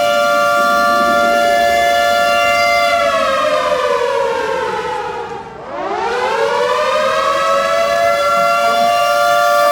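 Alarm siren sounding for an earthquake drill: a steady loud wail that slides down in pitch about three seconds in, dips lowest about halfway through, then climbs back up to its steady pitch.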